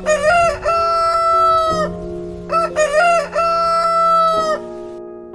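Rooster crowing twice, each crow about two seconds long: a quick broken opening followed by a long held note. The second crow starts about halfway through.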